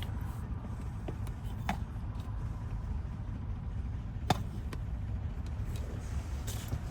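Light metal clicks at a pickup's door lock, with one sharp click about four seconds in, over a steady low rumble.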